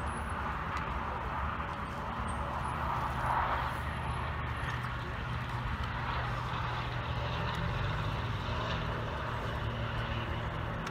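A steady low engine drone over outdoor background noise.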